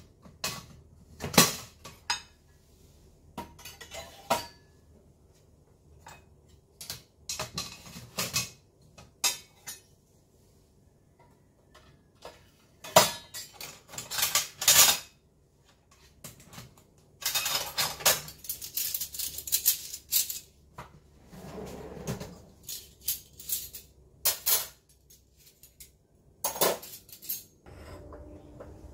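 Stainless steel cutlery and ceramic bowls and plates clanging and clinking as they are picked up, sorted and stacked away on a counter, in scattered sharp clinks with a denser run of clatter a little past the middle.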